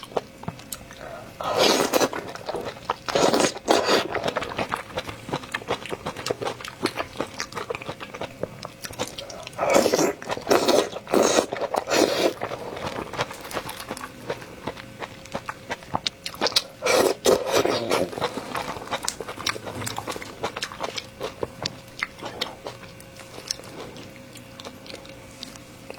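Close-miked eating: wet chewing and lip smacking as a steady run of small clicks, with several louder bursts of mouth noise, near the start, around the middle and again later.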